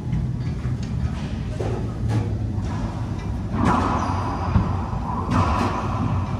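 Racquetball rally: a few sharp hits of the ball off racquets and court walls, the loudest about four and a half seconds in, over a steady low hum.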